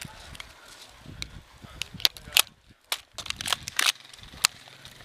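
Airsoft gunfire: a scatter of sharp, irregular pops and snaps, mostly in the second half.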